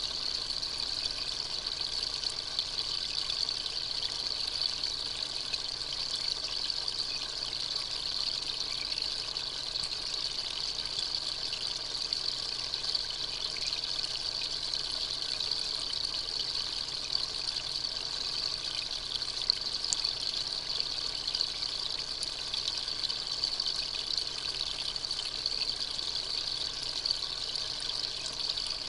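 Steady trickle of running water, an even hiss with no breaks.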